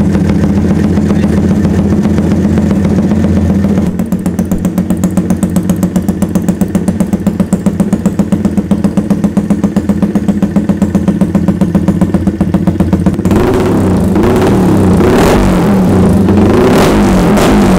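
The single-cylinder four-stroke engine of a Yamaha Sniper 150, enlarged to 186cc, running in a first sound check after the rebuild. It idles steadily, then pulses evenly about five times a second from about four seconds in. Over the last few seconds it revs in short blips.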